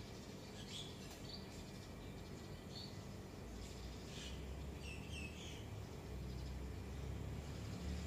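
Faint background with scattered short, high bird chirps through the first two-thirds, and a low rumble coming in about halfway through.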